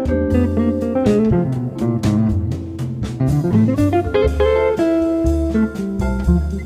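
Background music: an instrumental track led by plucked guitar with a bass line and a steady beat.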